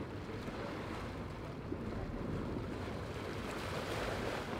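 A motor tender pulling away, its propeller churning the water into a splashing wake, with wind on the microphone.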